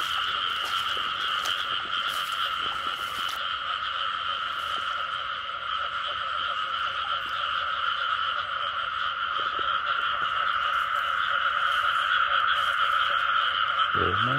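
Dense chorus of many frogs calling at once in a steady, unbroken din: a breeding chorus of frogs gathered after the season's first rains.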